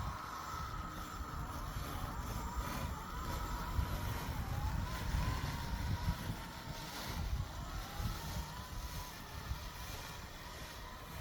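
BESTMOW Titan 100 battery robotic lawn mower running, a faint electric motor whine that wavers in pitch, under a gusty low rumble of wind on the microphone.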